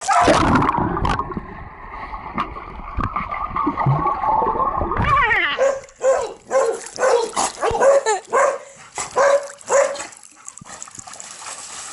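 A husky-akita mix dog whining in a long, wavering tone for about five seconds, then giving a run of short, pitched barks, about two a second, that stop near the end.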